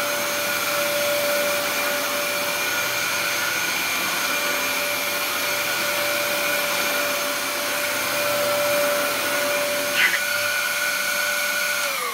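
Dyson DC07 upright vacuum cleaner running over carpet, its motor giving a steady high whine over the rush of air. There is a brief knock about ten seconds in. Right at the end the motor is switched off and its whine starts to fall.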